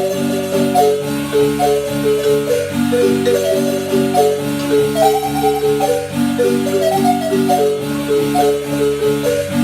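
Marimba playing a lively tune: a melody of quick struck notes in the upper bars over a repeating chord accompaniment in the low bars.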